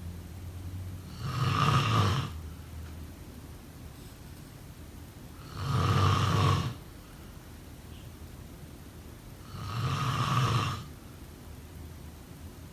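A person snoring in sleep. There are three loud snores about four seconds apart, each lasting about a second, with fainter breath sounds between them.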